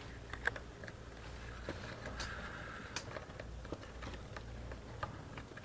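Scattered light clicks and taps of small metal parts being handled while refitting the pin in a Triumph Stag door handle mechanism. A double click about half a second in is the loudest, over a steady low hum.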